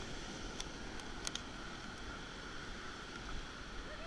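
Steady wash of small waves breaking on a sandy beach, mixed with wind buffeting the microphone, with a couple of sharp clicks in the first second and a half.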